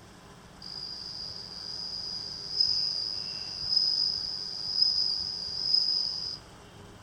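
Japanese bell cricket (suzumushi) singing, the male rubbing its wings: one continuous high ringing trill that starts about half a second in, swells louder several times, and stops suddenly about a second before the end.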